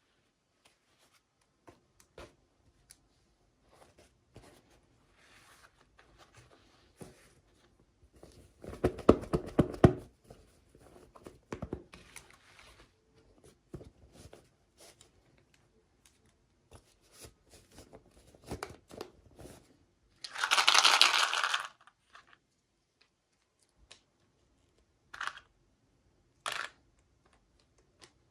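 Doll packaging being handled and opened by hand: scattered crinkles and clicks, a dense crackling stretch about nine seconds in, and a loud tearing rip about twenty seconds in, followed by a few short sharp clicks.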